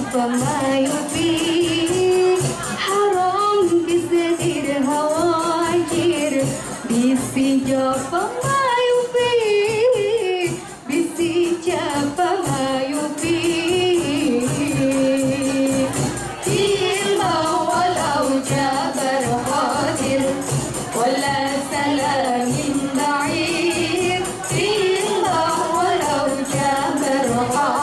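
A woman singing a wavering, ornamented melody into a microphone, accompanied by rebana frame drums and jingle tambourines beaten in a steady, quick rhythm.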